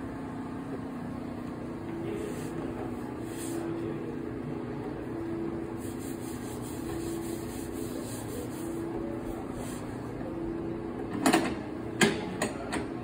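Udon noodle-making machine running, its steel rollers pressing a sheet of dough, with a steady low hum that swells and fades in even stretches. Near the end come a few sharp knocks as the dough is handled on the machine's steel table.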